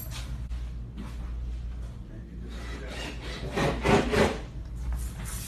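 Rubbing, scraping noise that swells loudest a little under four seconds in, over a steady low hum.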